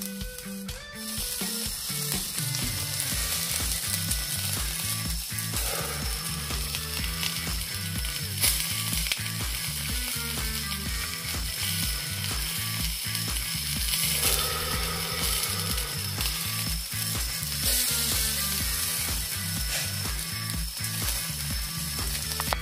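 Chicken cartilage sizzling on a wire grill over charcoal, a steady crackling hiss, with background music carrying a rhythmic bass line.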